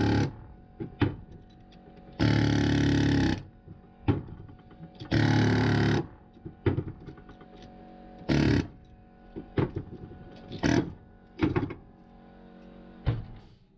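Pneumatic air chisel (air hammer) hammering into a copper motor stator's windings in several short bursts of about a second or less each, with clinks and knocks of loose metal pieces between the bursts.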